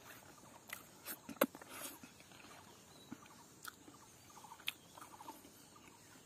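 Soft eating sounds: fingers picking up scattered rice grains from a banana leaf, with quiet chewing and a few sharp clicks and taps, the loudest about a second and a half in.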